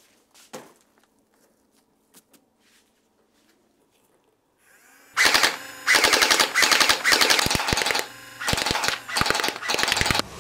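Faint handling clicks, then about five seconds in, several loud bursts of rapid automatic fire in the manner of an Uzi submachine gun, with a brief pause between bursts.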